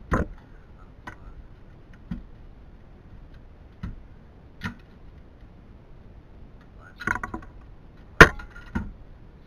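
Scattered clicks and clinks of parts and tools being handled while taking apart a DLP television: single knocks every second or so, a quick cluster about seven seconds in, and one loudest sharp knock just after it.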